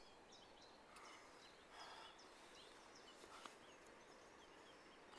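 Near silence with a few faint, scattered bird chirps.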